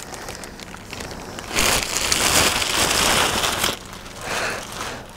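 Clear plastic bag crinkling and rustling as a compound bow is pulled out of it, loudest for about two seconds in the middle.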